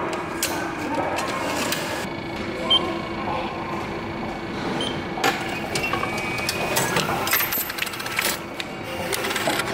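Subway ticket vending machine being used: a couple of short beeps as the touchscreen is pressed, then clicking and whirring as it issues the ticket and a receipt from the slot. Station ambience runs underneath.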